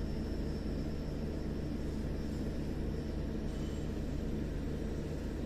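Steady low hum of running machinery: an even drone that does not change, with no knocks or clicks.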